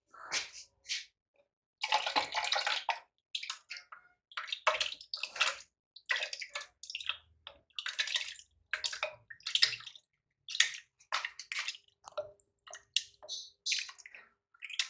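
Water splashing and dripping in short, irregular wet bursts, with a longer pour about two seconds in, as soaked apricots and their water are handled for the blender jug.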